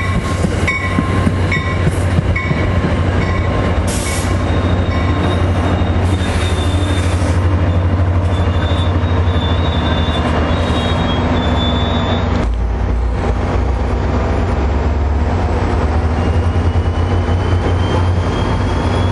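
Passenger rail cars rolling past close by at speed: a steady loud rumble of steel wheels on rail, with even clicks over the rail joints in the first couple of seconds and a thin steady squeal from the wheels.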